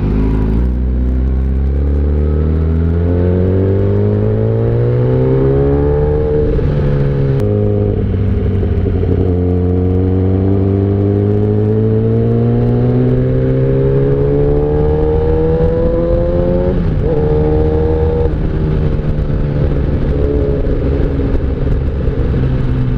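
Inline-four litre superbike engine pulling steadily up through the revs, its pitch rising slowly, then dropping sharply at an upshift about seven seconds in and again near eighteen seconds before climbing once more.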